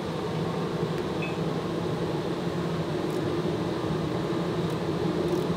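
Crankshaft grinding machine running with the crankshaft turning in it, a steady hum with a few faint ticks in the second half.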